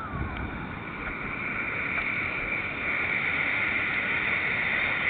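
Steady rushing of a waterfall, growing gradually louder.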